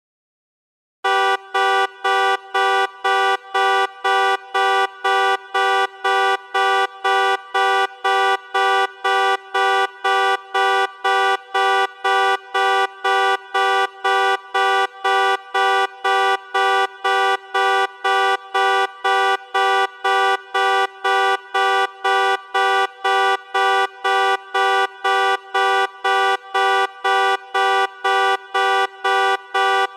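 2005 Infiniti QX56's horn beeping over and over as a horn-type car alarm goes off, at about two steady beeps a second, starting about a second in. A little echo has been added, like a large garage.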